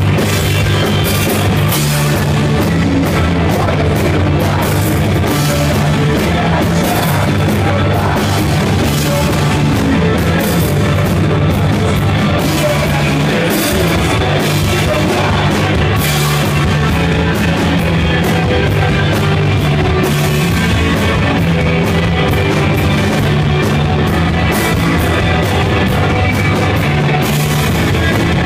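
Rock band playing live and loud: electric guitars, bass and drum kit, with singing at times, recorded on a phone.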